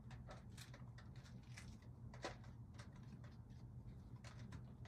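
Faint scattered clicks and light scrapes from seeding a jalapeno on a cutting board, over a low steady hum; one click a little over two seconds in is slightly louder.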